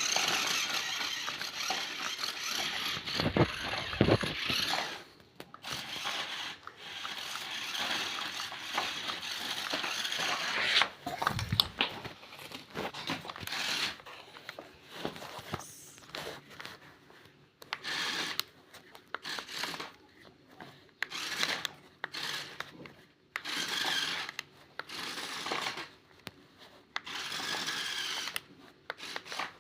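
Scraping and rubbing noise in short irregular bursts, with a few knocks about four and eleven seconds in.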